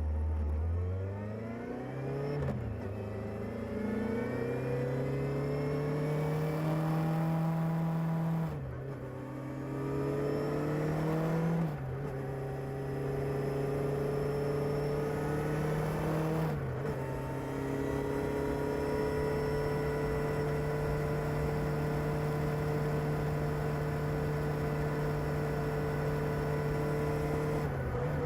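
Kawasaki ZR-7S's air-cooled inline-four on its stock exhaust, pulling away and accelerating up through the gears, the pitch dropping briefly at each shift, then holding a steady cruising speed for the last ten seconds or so.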